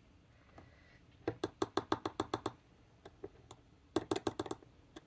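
Light, quick clicks of a paintbrush's metal ferrule tapping against the glass of an ink bottle as the brush is dipped in to load ink: a rapid run of about ten clicks, then a second short cluster near the end.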